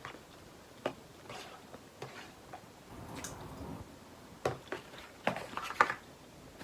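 Close-up eating sounds: chewing with scattered sharp, wet clicks and smacks, most of them bunched in the second half.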